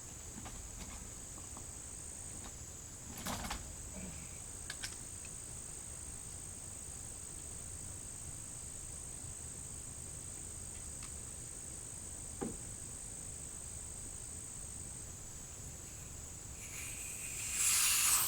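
Air compressor tank drain valve: a few faint knocks as it is worked loose, then about seventeen seconds in a loud hiss of compressed air and moisture rushing out of the tank's drain. A steady thin high-pitched whine sits under it throughout.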